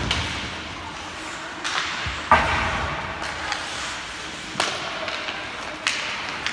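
Ice hockey play in a rink: sharp knocks of sticks and puck on the ice and boards every second or so, the loudest a heavy thud about two seconds in, over a steady arena hiss.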